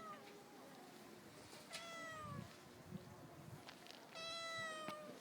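A domestic cat meowing. A short call about two seconds in drops slightly in pitch, and a longer, steady meow lasts about a second near the end.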